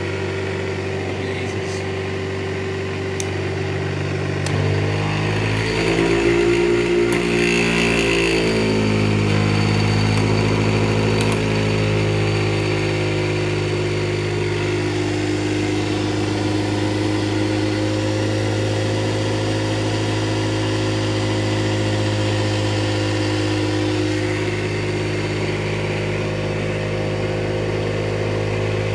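Electric-motor rig spinning a 7.5 hp three-phase motor set up as an alternator, running with a steady mechanical hum. About five seconds in, the hum grows a little louder and deeper, and its pitch wavers for a few seconds before it settles into an even drone.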